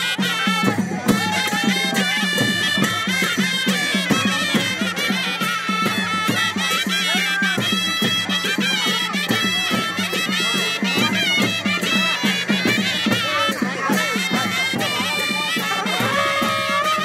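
Brass trumpets of a Nepali wedding band playing a folk melody over a steady low drone, with percussive beats throughout.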